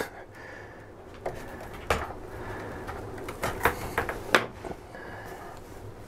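Handling noise from an armored fiber optic cable being worked by gloved hands: a few sharp clicks and knocks over light rustling as the cable and its rip cords are handled.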